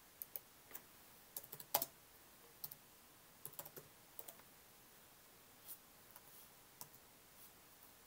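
Faint computer keyboard typing: irregular key clicks in short clusters.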